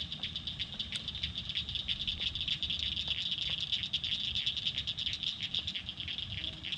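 Night chorus of insects: a high, steady, rapidly pulsing chirring, over a low background rumble with a few faint clicks.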